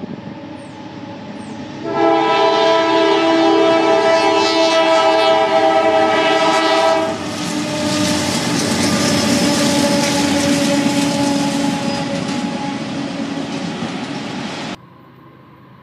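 Freight train's diesel locomotive air horn blowing one long chord about two seconds in, lasting around five seconds. The locomotive and its autorack cars then rumble and clatter over the road crossing, until the sound cuts off suddenly near the end.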